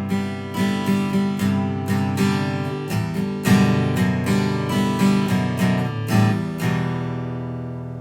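Outro music: strummed acoustic guitar, the final chord ringing out and fading near the end.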